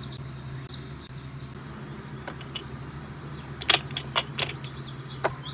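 Sharp plastic clicks and clacks of Mega Bloks toy train pieces being handled as a grey cart is brought up to the Thomas engine, a few of them from about two seconds in, the loudest near four seconds. A steady low hum runs underneath.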